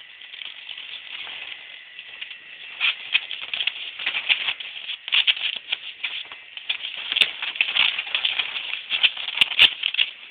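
A dog's claws clicking and pattering quickly and irregularly on a hard floor as it spins round and round.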